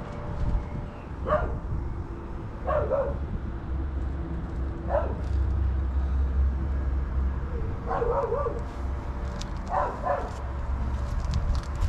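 A dog barking a few times in short bursts, some of them doubled, over a steady low rumble.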